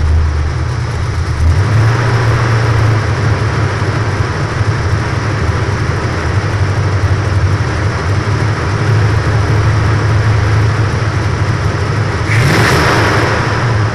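Oldsmobile 350 V8 on a Quadrajet carburettor with an aftermarket cam, idling steadily while it warms up, its choke not yet fully open. About twelve seconds in there is a brief rush of noise lasting about a second.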